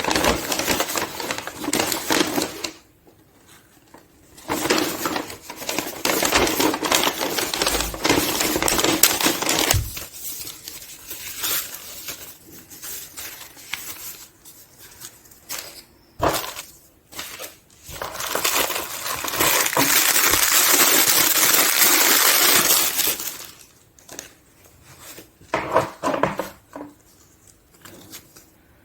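Packaging being handled during an unboxing: stretches of rustling and crinkling broken by quieter gaps, with scattered sharp clicks and taps of small hard objects.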